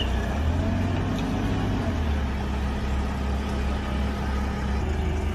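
Engine running steadily with a low hum. In the first two seconds its pitch rises a little and falls back, then it holds steady.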